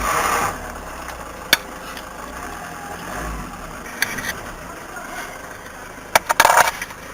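Car running with a steady low hum, a sharp click about a second and a half in, and a cluster of louder short noisy bursts near the end.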